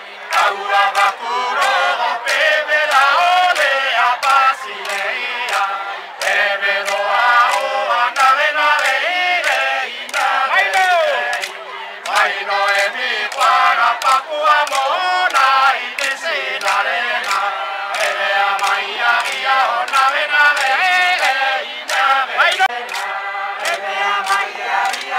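A group of Papua New Guinean villagers chanting a traditional dance song in unison, their voices rising and falling together, with sharp clicks running through it.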